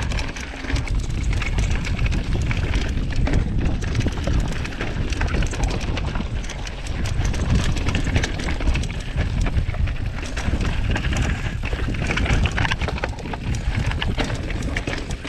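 Mountain bike riding fast down a rough trail, heard from a rider-mounted camera: wind buffeting the microphone under a constant clatter of tyres, chain and frame over stones.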